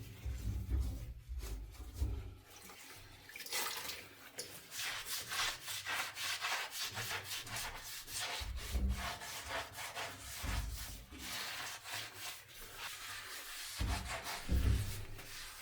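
Bathtub being scrubbed by hand: quick back-and-forth rubbing strokes, densest from about three seconds in, with a few low dull knocks along the way.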